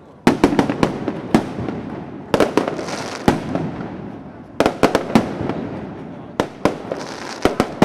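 Aerial fireworks shells bursting in four quick volleys of several sharp bangs each, every volley followed by a rumbling echo that fades away.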